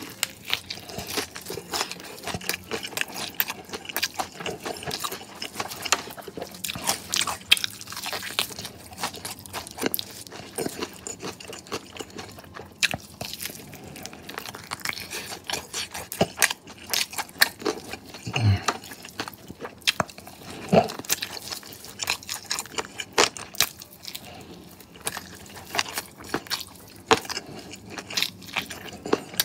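Biting and chewing crispy fried chicken wings coated in sauce: a steady run of irregular crunches and mouth clicks.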